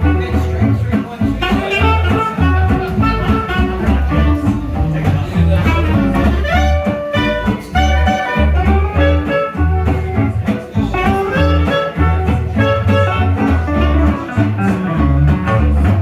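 A live swing jazz band playing with guitar to the fore over a steady walking bass line.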